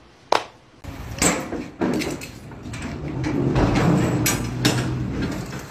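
Several sharp metal clanks and rattles from the locking bars and doors of a steel shipping container being worked by hand.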